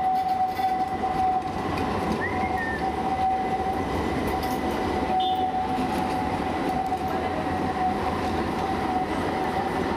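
Modern low-floor street tram running past on its rails: a steady rumble of wheels on track with a constant high-pitched whine over it.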